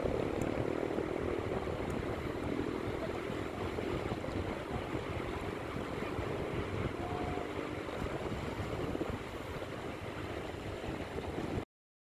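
Small waves washing onto a sandy beach, with wind rumbling on the microphone. The sound cuts off abruptly near the end.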